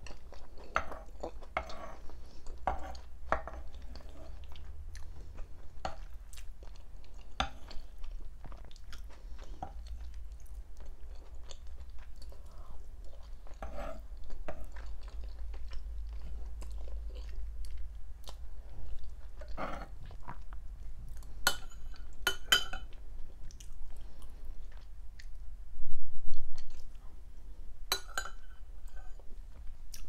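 Close-miked chewing of dolma, soft stuffed vine leaves with a rice filling, with wet mouth clicks and smacks. A metal spoon clinks sharply a few times in the second half, and there is one short, loud low bump near the end.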